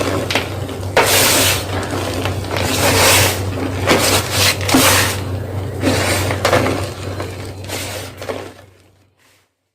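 Soft gym chalk being crunched and crumbled in a quick, irregular run of crunches that stops near the end.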